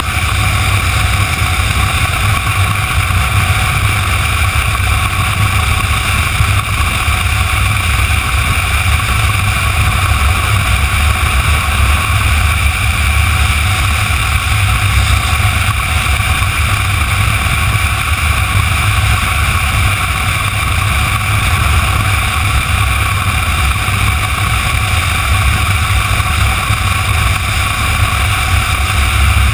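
Motorcycle cruising at steady road speed: a continuous low engine drone mixed with steady wind rush over the rider-mounted camera.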